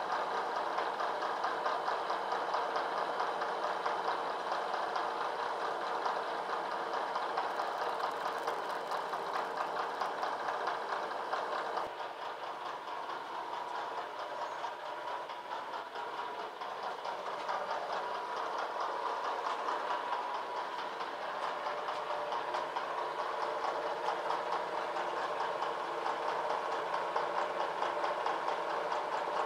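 Vertical milling machine running a long end mill through a side cut on a metal locomotive frame part: a steady cutting sound with fine rapid chatter and a steady whine. It dips a little about twelve seconds in, then rises again.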